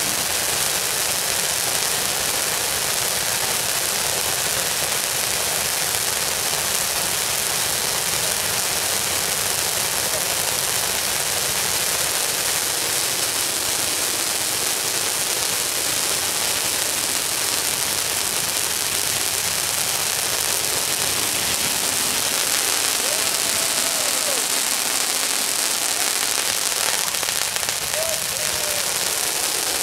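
A row of ground fountain fireworks spraying sparks with a steady, dense hiss like heavy rain.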